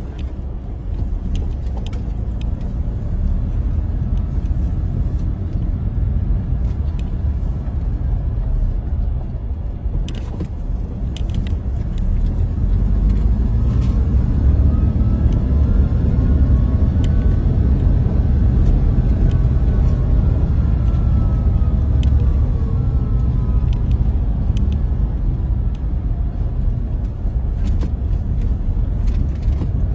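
Car driving along, a steady low rumble of engine and tyres on the road. Across the middle a faint tone rises and then falls away, with a few light clicks here and there.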